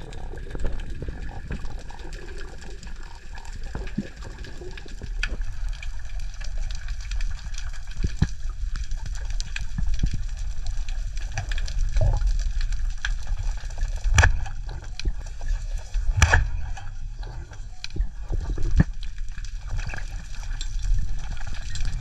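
Underwater sound during a freediving spearfishing dive: a low rush of water movement, with scattered sharp clicks and a few louder knocks in the second half.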